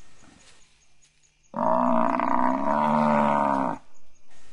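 A Cape buffalo bull gives one long bellow, about two seconds, starting about a second and a half in: the distress bellow of a dying bull whose muzzle is held by a lioness.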